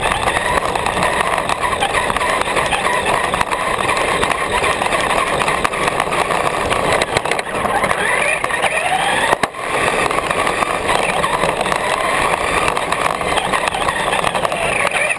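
A radio-controlled car's motor whining, rising and falling in pitch as the car speeds up and slows, over the steady rolling noise of its small tyres on asphalt, picked up from on board the car. The sound dips briefly a little past halfway.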